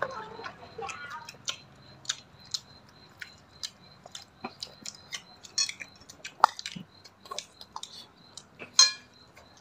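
People chewing and gnawing meat off braised pork ribs held in their hands: irregular soft wet clicks and lip smacks, a few sharper ones, with one louder click near the end.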